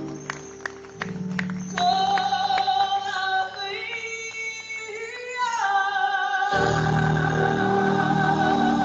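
Singing with musical accompaniment: a voice holds long, drawn-out notes, and a fuller, lower accompaniment comes in about six and a half seconds in.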